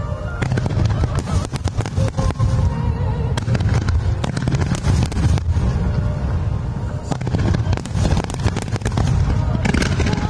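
Fireworks display in full barrage: aerial shells bursting in rapid, continuous succession, booms overlapping with the crackle of glittering stars.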